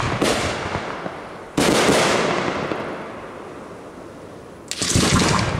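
Aerial firework shells bursting: a small bang at the start, the loudest bang about a second and a half in, and another near the end. Each dies away over a couple of seconds.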